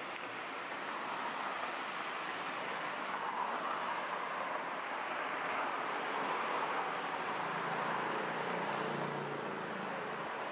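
Steady road traffic noise from cars passing on a busy city road, with a low engine rumble coming in about eight seconds in.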